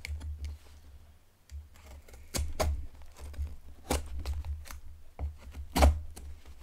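Camillus titanium folding knife slicing through the brown packing tape on a cardboard box: an irregular run of sharp ticks and snaps as the blade cuts and the tape splits, over low thuds of the box being handled.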